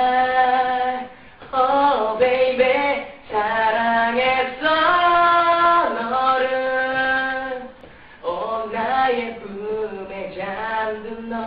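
A teenage boy singing solo without accompaniment, holding long, steady notes in short phrases with brief breaths between them.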